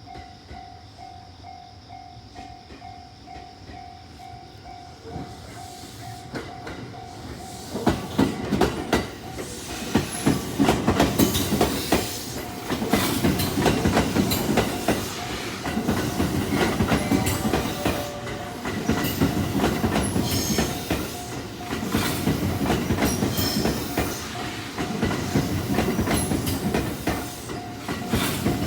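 A Japanese railway level crossing's warning bell rings in an even, pulsing beat. About eight seconds in, a train arrives and runs through the crossing, loud, with the rapid clickety-clack of its wheels over the rail joints under the bell.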